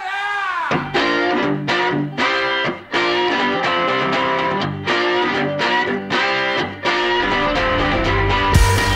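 Background music led by a guitar riff, with a heavier low end and beat coming in near the end.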